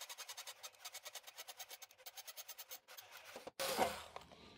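Bosch cordless screwdriver working a tight screw out of a metal battery frame: a fast, even clicking rattle, about eight clicks a second, then a brief louder scrape of metal near the end.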